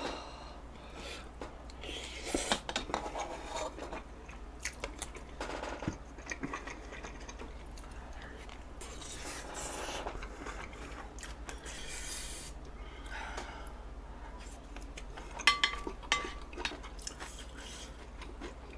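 Eating sounds: utensils intermittently scraping and clicking against dishes. There is a louder cluster of clinks with a brief ring about three quarters of the way through.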